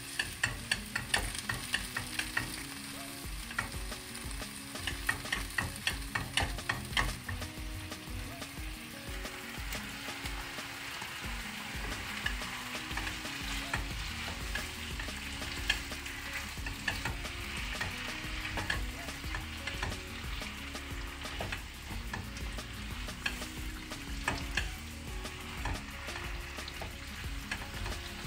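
Spatula clicking and scraping against a nonstick wok while ground pork bubbles in its sauce. From about ten seconds in, a steadier, denser sizzle as baby bok choy is stir-fried, with the spatula still knocking now and then.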